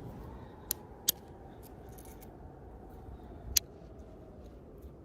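Three sharp clicks of a heavy copper bopper striking the edge of a hornstone preform, knocking off flakes: two close together about a second in, a third a few seconds later.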